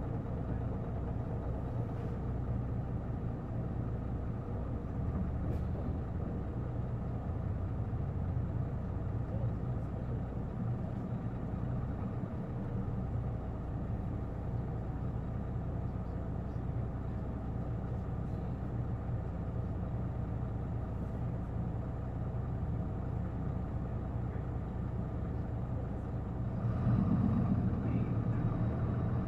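Heard from inside the bus: the Isuzu Erga city bus's six-cylinder turbo-diesel engine running steadily with a low hum. It grows louder near the end.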